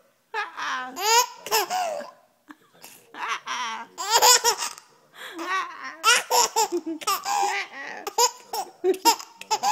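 Laughter, including a baby's, in a quick run of short high-pitched bursts with a couple of brief pauses.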